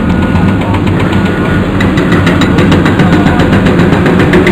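Heavy Caterpillar excavators' diesel engines running under a rapid, steady clatter of hydraulic breaker hammers pounding the concrete of the overpass deck.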